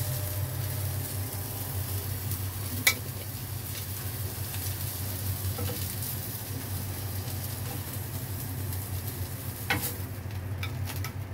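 Prawns sizzling on a hot stovetop grill pan, over a steady low hum. Two sharp clicks of metal tongs come about three seconds in and again near the end, and the sizzle thins out after the second one.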